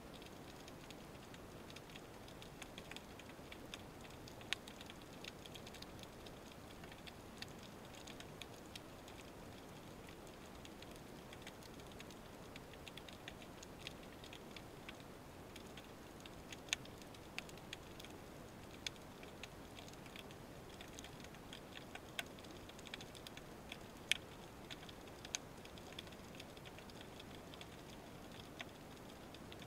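Underwater ambience heard through a camera housing: a faint steady hiss with scattered sharp clicks and crackles, irregular, a few louder ticks about four seconds in and several more in the second half.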